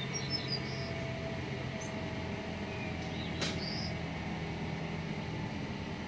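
Steady, distant rumble of a Boeing 767 freighter jet passing high overhead, with a few short bird chirps near the start and again midway.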